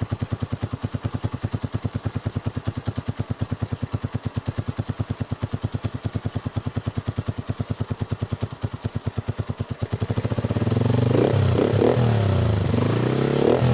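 Honda TMX single-cylinder four-stroke engine running through a curve-type bullet pipe muffler with its silencer insert fitted: a steady, even idle, then from about ten seconds in it gets louder with several quick revs of the throttle.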